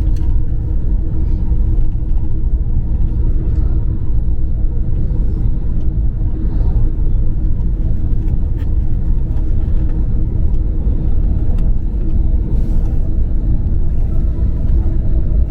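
Steady low rumble of a tour bus on the road, heard from inside the cabin: engine drone and road noise with a constant hum.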